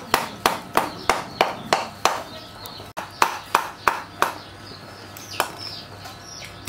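Cleaver chopping and mincing raw fish fillets on a wooden chopping block, sharp knocks at about three a second. The chopping stops briefly after about two seconds, runs again for four strokes, then pauses with a single chop in the last part.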